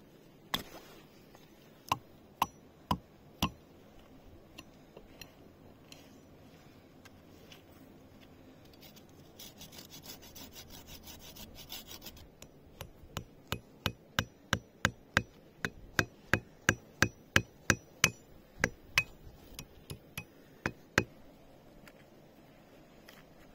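Hand-tool work on wood: a few sharp knocks, then a short stretch of scraping, then a quick run of about twenty evenly spaced knocks, two or three a second.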